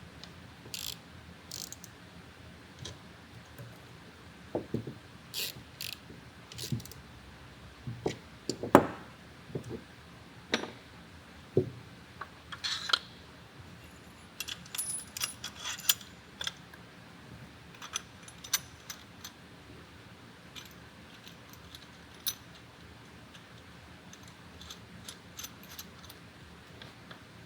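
Irregular metallic clicks, clinks and knocks from hand tools and small metal parts being handled while servicing a canning line's filler exit gate. The loudest single knock comes about a third of the way in.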